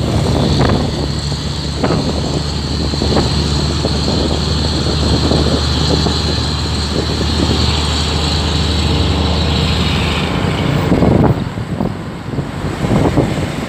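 Truck engines and road traffic running steadily, a low engine hum with a high whine over it. About ten seconds in the whine slides down in pitch and the sound falls away, as a vehicle goes past.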